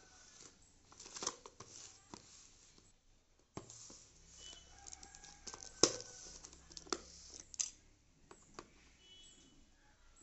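Cardboard box being handled and turned over on a hard floor: irregular scrapes, rustles and knocks, the loudest a sharp knock about six seconds in. Near the end a flat blade is pushed into the box's seam.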